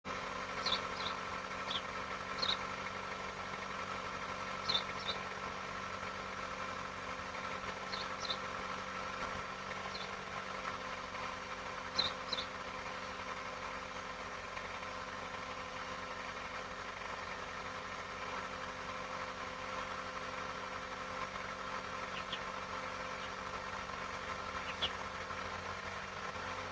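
Outdoor ambience: a steady hum holding several constant pitches, with short high chirps now and then, most of them in the first half.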